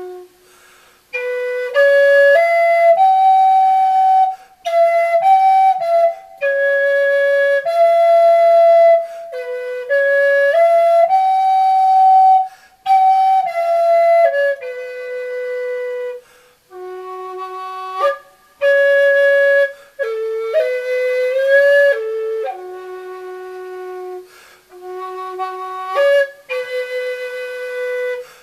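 Native American flute playing a slow melody of held notes in short phrases, with pauses for breath between them, through a hall reverb effect.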